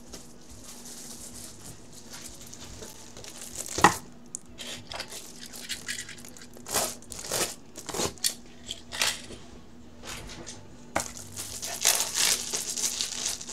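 Crinkling and rustling of card packaging being handled, in short bursts, with one sharp knock about four seconds in and denser rustling near the end.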